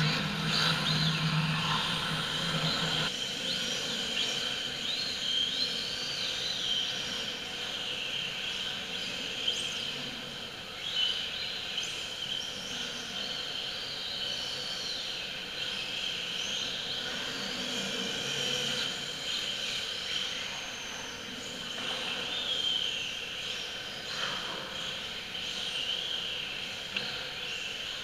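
Electric radio-controlled drift cars' motors whining, the pitch rising and falling repeatedly as they are throttled through the drifts, over a steady high-pitched tone.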